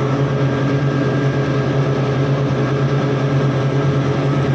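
Steady, loud low machine hum with a constant pitch and no change in speed, typical of a motor or compressor running continuously in a plant room.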